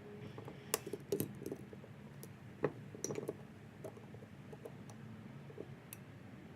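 Irregular light metallic clicks and taps, a handful of them bunched in the first half: the tips of deep-reach snap ring pliers working at the piston circlip inside an Acura RSX rear brake caliper, slipping as they hunt for the circlip's holes.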